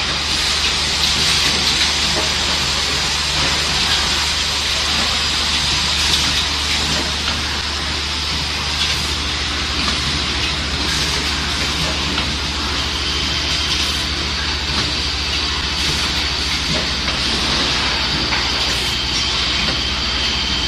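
Automatic sticky-hook assembly machine running: a steady mechanical hum and air hiss, broken every few seconds by sharp clicks from its pneumatic cylinders. A thin high whine joins about two-thirds of the way through.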